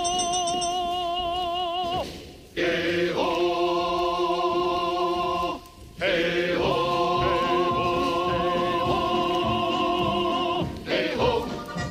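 Background music: a vocal choir singing long held chords with vibrato, in three phrases separated by short breaks.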